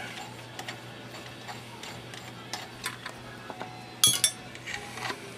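Scattered small metallic clicks and taps of tools and engine parts being handled during teardown of a motorcycle engine's crankcases, with a sharper cluster of metal clinks about four seconds in.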